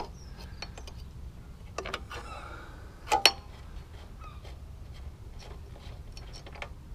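Small metallic clicks and taps of a spark-plug spanner being turned on the spark plug of a Briggs & Stratton 148cc lawnmower engine as the plug is undone, with one sharper click about three seconds in.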